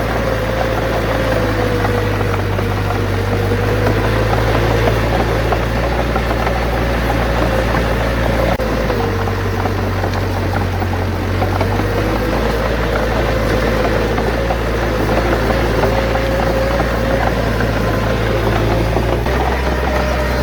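Bulldozer's diesel engine running steadily under working load, its note dipping and rising a few times as the engine speed changes.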